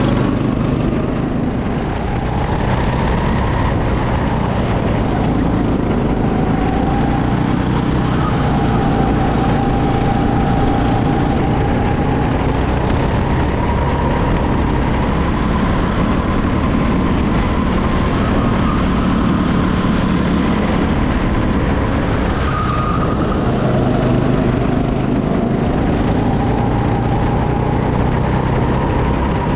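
Go-kart engine heard from the driver's seat, running hard through a lap, its pitch rising and falling with the throttle through the corners and straights.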